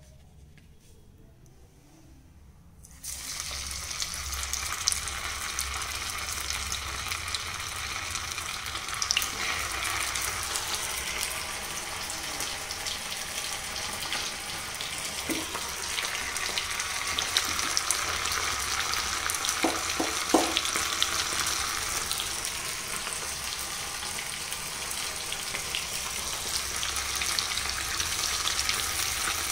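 Rava-coated sardines deep-frying in hot oil: a steady sizzle with fine crackling that starts suddenly about three seconds in.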